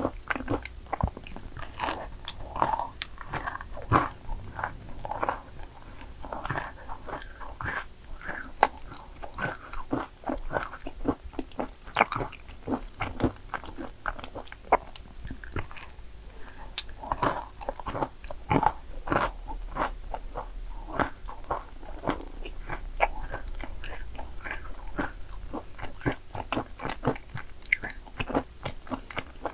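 A person biting and chewing yakgwa cookies: frequent crisp crunches with softer, moist chewing between them.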